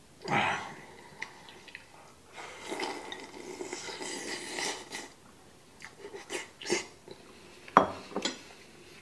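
Miso soup slurped from a small bowl held to the mouth: a loud slurp about half a second in, then longer sipping in the middle. It is followed by several sharp clicks and taps of the bowl and chopsticks, the sharpest near the end.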